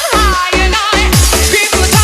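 Electronic dance music with a pounding four-to-the-floor kick drum, about four beats a second, and wavering synth melody lines.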